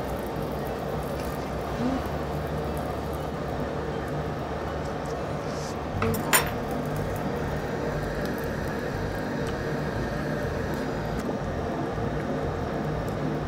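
Metal chopsticks clicking lightly against dishes and the grill over a steady hum from the tabletop grill's exhaust hood, with one sharp clink about six seconds in.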